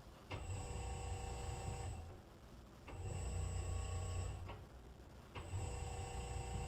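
Grain distributor's electric drive motor running in short runs of about a second and a half, stopping for about a second between them, three times, with a low hum and a steady high whine. The control is stepping the distributor from duct to duct during its automatic install and auto-tune routine.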